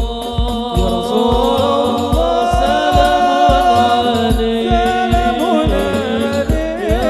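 Hadroh ensemble performing a sholawat: a sung melody with ornamented, held notes over a steady beat of low frame-drum and bass-drum strokes.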